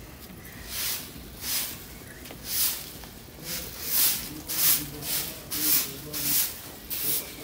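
A hand broom sweeping a bare packed-earth yard: short swishing strokes that begin about a second in and quicken to about two a second.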